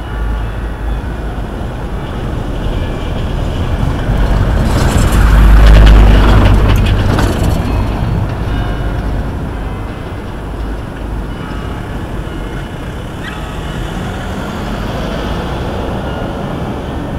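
City bus driving past close by on a cobbled street: its engine rumble and tyre noise swell to a peak about six seconds in, then fade away, over steady city traffic noise.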